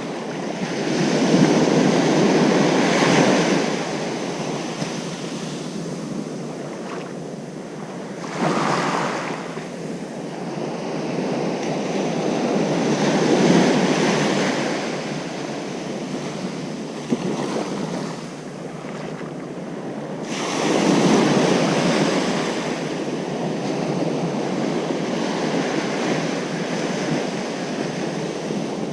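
Ocean surf washing onto a beach: a steady rushing noise that swells into the loudest breaks about two seconds in, near the middle, and about two-thirds of the way through, then eases back between them.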